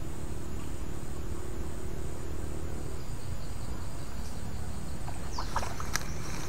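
Outdoor ambience by a creek: a steady low rumble under an insect's high, pulsing trill, which fades about five seconds in. A few sharp clicks and rustles come near the end.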